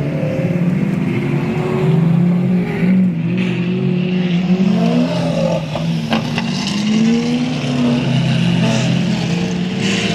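V12 car engine running hard, its pitch rising and falling as it revs up and eases off again and again, with a couple of sharp clicks a little past halfway.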